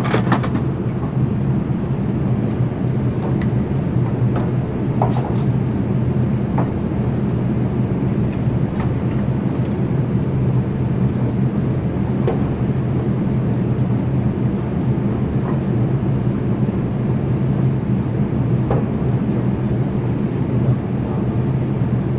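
A steady low drone of an engine running, unchanging throughout, with a few faint clicks of hand tools over it.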